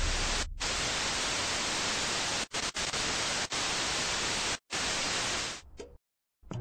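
Television static sound effect: a steady hiss of white noise, broken by several brief dropouts, that fades out and stops near the end.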